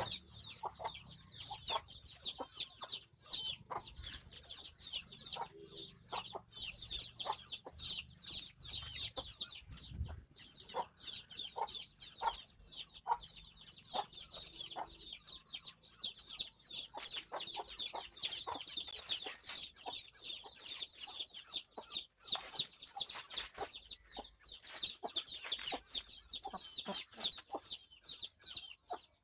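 Chicken clucking in short, repeated calls, over dense high-pitched chirping that carries on throughout.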